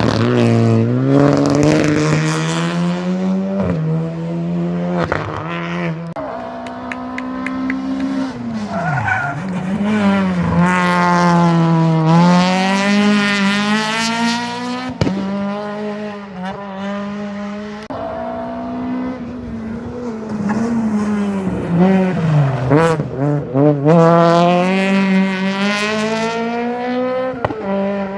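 Rally car engine revving hard through a stage, its pitch climbing and dropping again and again with gear changes and lifts off the throttle, with a few sharp cracks in between.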